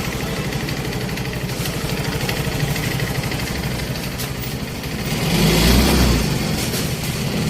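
Yamaha Mio i 125 scooter's single-cylinder four-stroke engine running at idle, with a short blip of the throttle about five seconds in. The engine is noisy after running dry of oil.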